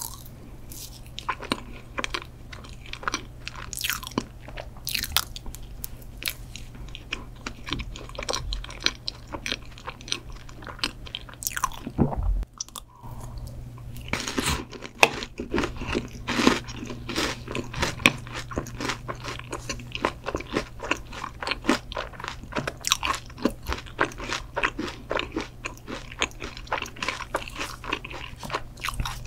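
Close-miked chewing of chocolate mousse cake: many small mouth clicks and smacks, with a short lull about midway and then denser, louder chewing. A faint steady low hum runs underneath.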